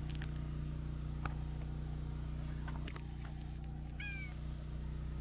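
A tortoiseshell cat gives one short, soft meow about four seconds in, a friendly, attention-seeking call, over a steady low background hum with a few faint clicks.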